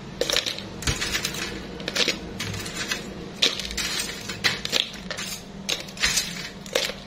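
Metal tongs clinking and scraping against a wire fryer basket while crisp fried potato sticks are picked up and dropped into a plastic container: a run of irregular light clicks and rattles.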